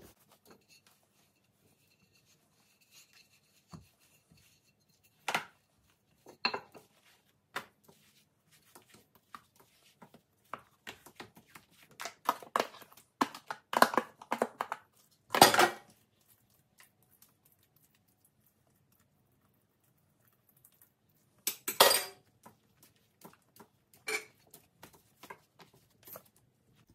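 A spoon scraping and clinking against a plastic tub while emptying pumpkin filling onto dough, in a busy stretch around the middle. Scattered light taps and knocks of dough being handled on a kitchen counter, with another short clatter later on.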